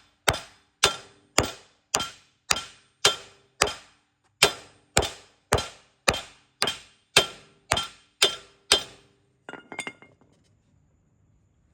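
Hammer blows on metal, about two a second, each ringing briefly. They stop about nine seconds in, followed by a few quick lighter clinks.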